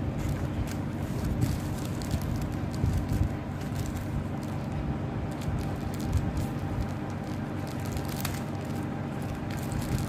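A plastic courier mailer crinkling and crackling as it is handled and snipped open with scissors, with scattered small clicks and a louder crackle near the end. A steady low hum from a running appliance continues underneath.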